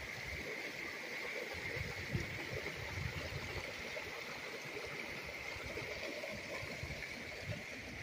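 A mountain creek rushing steadily, with uneven low thuds of footsteps over the forest floor.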